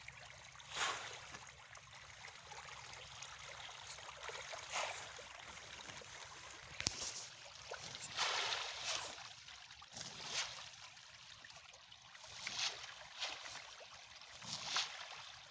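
A dense school of fish thrashing and splashing at the water surface: a running watery splashing that swells into louder irregular bursts every second or few, with one sharp click about seven seconds in.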